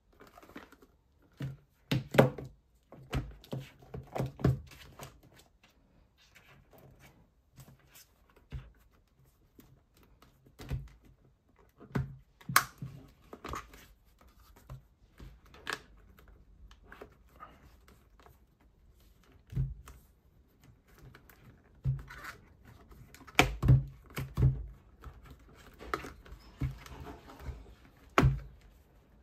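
Handling noise from a rubber protective cover being stretched and pressed onto a diagnostic tablet: irregular knocks, thuds and rubbing of rubber on plastic. The loudest knocks come about two seconds in and in a cluster about three-quarters of the way through.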